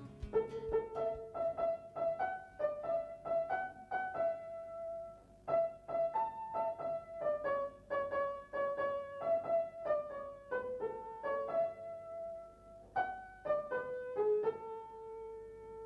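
Background music: a piano-like keyboard playing a light melody of short, quickly decaying notes, settling on a longer held note near the end.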